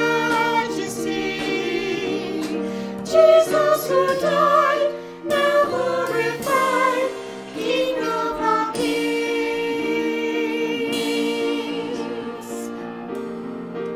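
A small group of voices, women and a girl among them, singing together in parts with piano accompaniment, holding a long chord in the second half.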